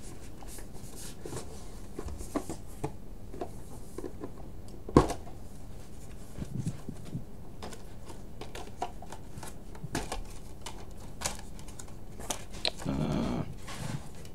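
Plastic Blu-ray disc cases and packaging being handled: scattered light clicks and rustles, with one sharper knock about five seconds in and a short stretch of rustling near the end.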